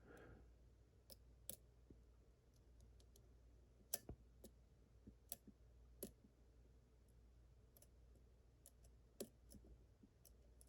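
Faint, scattered clicks of a lock pick probing the pins of a Yale Superior KM1 pin-tumbler lock under tension. The picker is checking the other pins while pin 6 binds hard.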